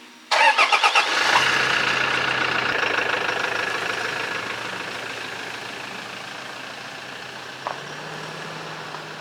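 A car engine cranks in a quick burst of pulses, catches, then settles into a steady idle with a low hum that steps up slightly near the end, slowly growing quieter.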